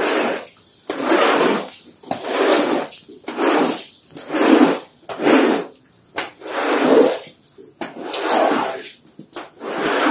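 Rubber floor squeegee pushing soapy water across a rough concrete floor in repeated strokes, about one a second.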